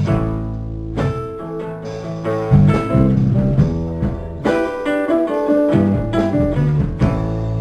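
Live band playing an instrumental passage led by guitar, with a bass line under regular strums.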